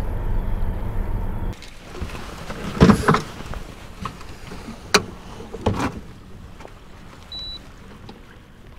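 A boat motor runs with a steady low hum and stops about a second and a half in. A few knocks and bumps follow, the loudest about three seconds in.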